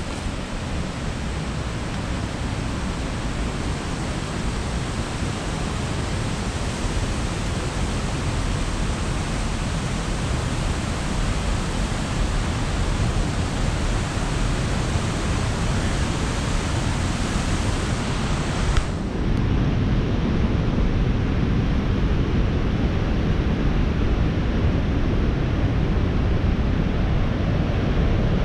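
Steady rushing noise outdoors, with no distinct footsteps or voices. About two-thirds of the way in it suddenly loses its hiss and a low rumble grows stronger.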